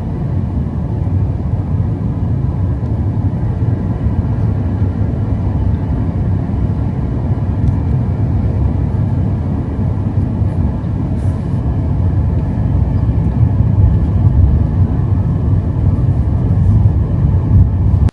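Steady low road and engine rumble of a car driving.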